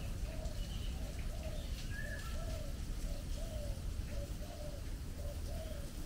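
A bird repeats a short, low, arched hooting note about twice a second, with a few higher whistled notes from other birds, over a steady low rumble.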